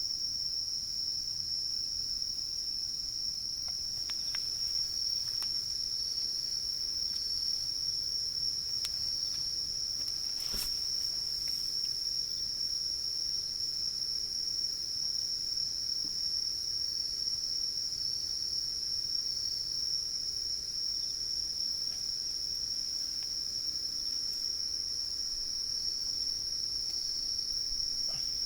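Crickets trilling in one steady, unbroken high-pitched tone, with short chirps repeating in groups just below it. A few sharp clicks break in, the clearest about ten seconds in.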